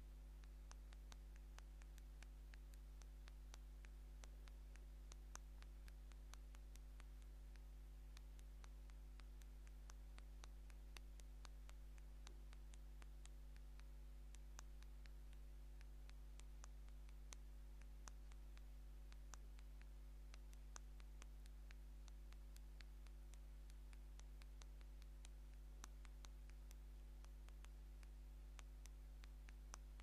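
Fingernails tapping out a text on the touchscreen of an older LG phone: faint, quick, irregular clicks, a few a second, over a steady low electrical hum.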